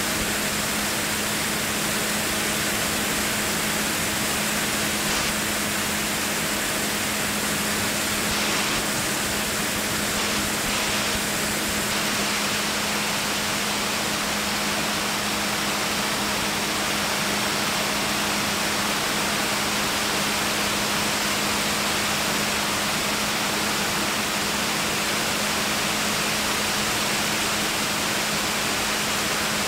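Small aircraft in cruising flight: a steady rush of air with a constant low engine hum beneath it, unchanging throughout.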